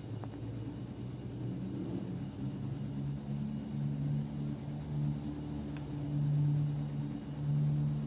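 A low, steady droning hum like a motor or engine, swelling louder in waves over the second half.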